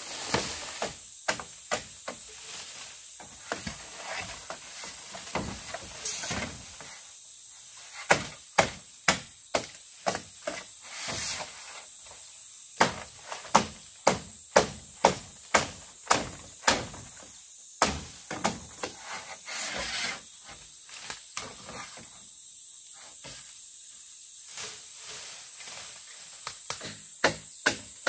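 Repeated chopping strikes of a hand tool, in runs of about two to three a second, with a heavier thump partway through, over a steady high hiss.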